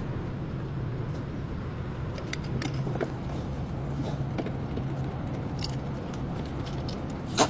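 Light metallic clicks and clinks, typical of tools and parts being handled in a brake job, over a steady low hum. One sharper clack comes near the end.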